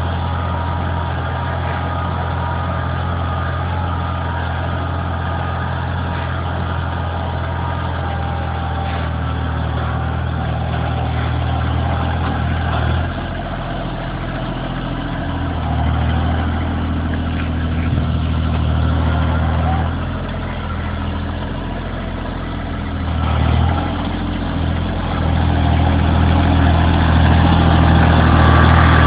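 Kubota tractor's diesel engine running. Its note holds steady at first, then shifts up and down a few times from about halfway through and grows louder near the end.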